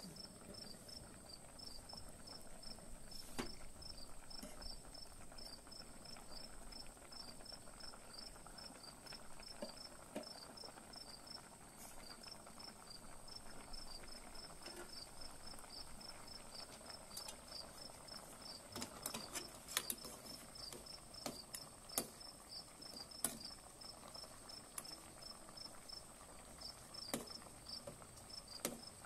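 Insects chirping in a fast, even pulse with a steady high whine alongside, over faint bubbling from a pot boiling on a gas stove, with scattered sharp clicks that come more often in the second half.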